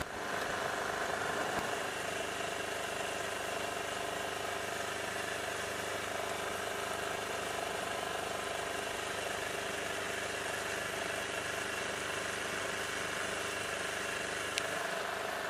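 Outboard motor of a Neptun 22 sailing yacht running steadily under way, driving the boat upstream against the river current. A single light click sounds near the end.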